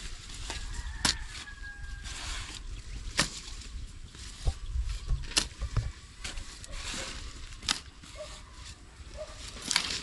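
Shovel and hoe blades striking and scraping into wet soil, with a sharp strike about every two seconds and gritty scraping in between.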